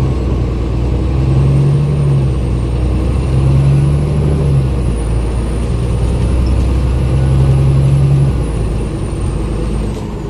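Bus engine and drivetrain heard from inside the passenger cabin: a steady low rumble with a hum that comes and goes, and a faint high whine that slowly rises and falls. The low engine note eases off about eight seconds in.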